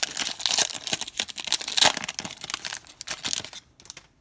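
Foil trading-card pack wrapper crinkling and tearing as it is ripped open by hand, with dense sharp crackles that stop about three and a half seconds in.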